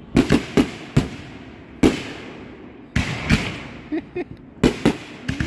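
Fireworks going off: about ten sharp bangs at irregular intervals, some in quick pairs, each trailing off in an echo.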